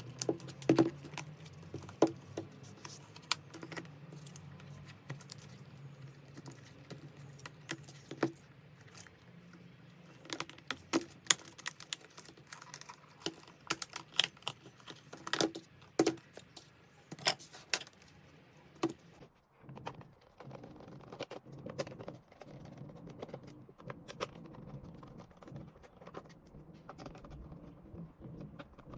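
Irregular sharp clicks and taps of small tools, screws and plastic parts being handled as a handheld scan tool is taken apart for a battery swap, over a faint steady low hum.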